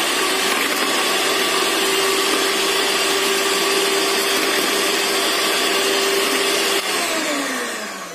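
Electric hand mixer running steadily on its lowest speed, its twin beaters whisking milk in a steel bowl. Near the end it is switched off and the motor's whine falls away as it spins down.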